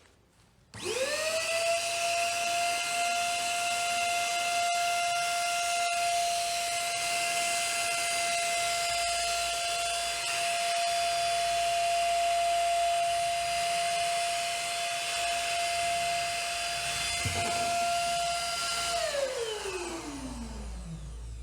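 Repaired electric paint sprayer's motor switched on, spinning up within a second to a steady high whine and running evenly, then switched off near the end and winding down with a falling pitch. It runs properly after the repair.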